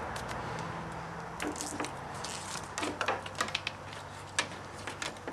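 Electrical wire being handled at a wire stripper: irregular light clicks and rustles of copper wire and cut insulation, starting about a second and a half in.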